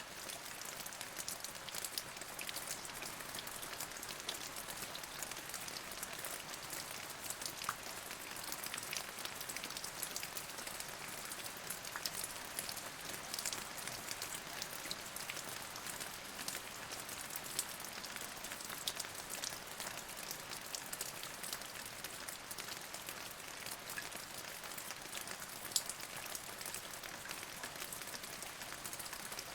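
Steady rain falling, with many separate drops ticking close by over an even hiss.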